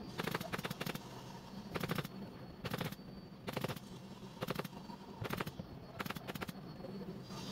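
Pneumatic upholstery staple gun firing in short bursts of rapid clicks, about one burst a second, as fabric is stapled to a sofa frame.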